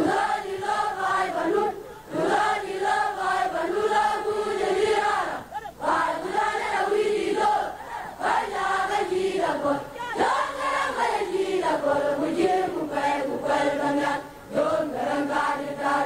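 A group of voices singing together in unison, in phrases broken by short pauses.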